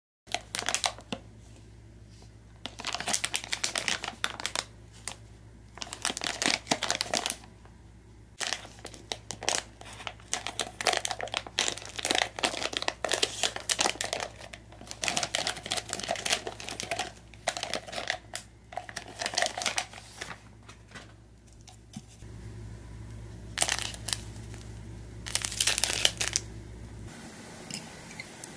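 A foil-lined plastic candy packet being handled, crinkled and torn open, in repeated bursts of crinkling with short pauses between them.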